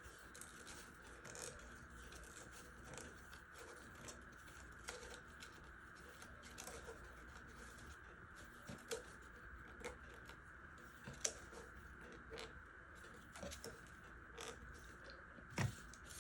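Faint, irregular small clicks and scrapes of handwork, over a steady hum. One sharper click comes about eleven seconds in, and a louder knock near the end.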